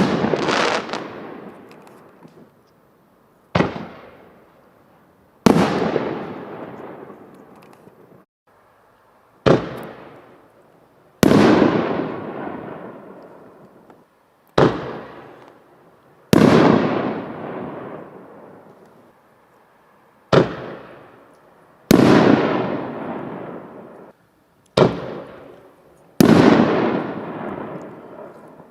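Fireworks going off: about a dozen loud bangs, one to four seconds apart, each fading away over a second or more.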